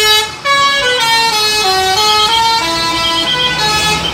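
Musical vehicle horn playing a quick tune of stepped notes, with a brief break about a third of a second in, over a low engine rumble.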